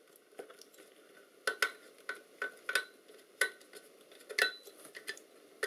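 Screwdriver working the small back-cover screws of a Soviet aircraft instrument: irregular sharp metal clicks, about one to three a second, starting about a second and a half in.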